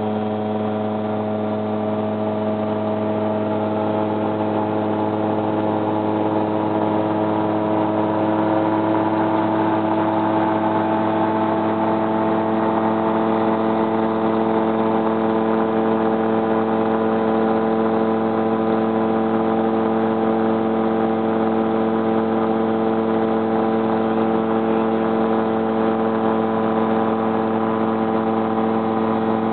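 Seastar amphibian ultralight's engine and propeller droning steadily in cruise flight, heard from inside the cockpit. It is a constant tone, growing slightly louder about a third of the way in.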